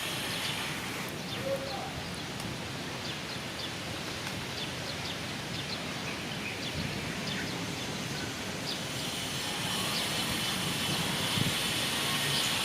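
Steady wind noise with many short, faint high ticks scattered through it.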